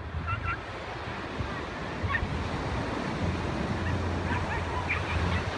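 Small waves breaking and washing up onto a sandy beach, a steady surf noise, with wind rumbling on the microphone.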